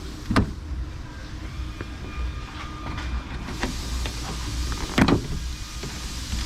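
Sharp clicks and knocks of the plastic trunk-lid trim panel and its clips being handled, with two loud snaps, one just under half a second in and one about five seconds in, and fainter ticks between, over a steady low hum.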